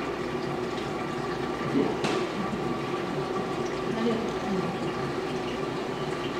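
Steady running and bubbling water from a saltwater aquarium's filtration and circulation, with a single sharp click about two seconds in.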